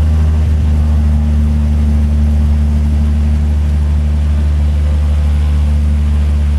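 Bush plane's piston engine and propeller running at steady power, a constant low drone that does not change.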